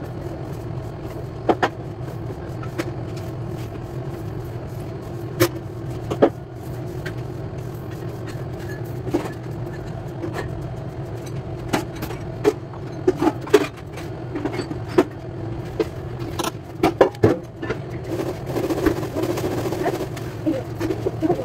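Steady hum of commercial kitchen machinery with scattered sharp clicks and knocks of kitchen work, more frequent in the second half.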